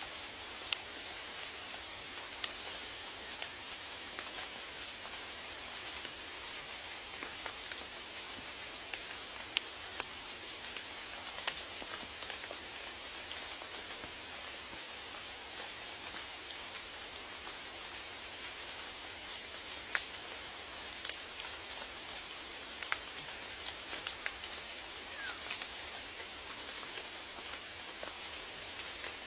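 Steady rain, an even hiss with many separate drops ticking sharply at random over it.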